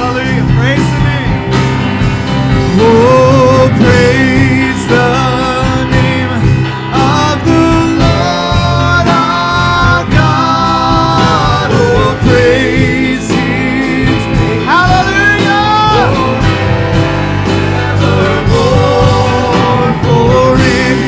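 Live worship band music: a melodic lead line with vibrato and pitch bends over steady bass, guitar and drum accompaniment.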